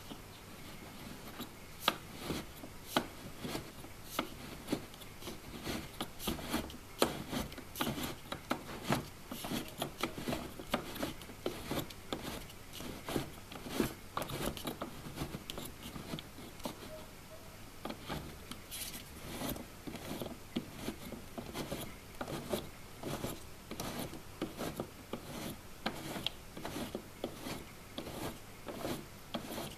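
Wooden planetary gear train turning, its gear teeth meshing in an irregular run of small clicks, knocks and rubbing, several a second.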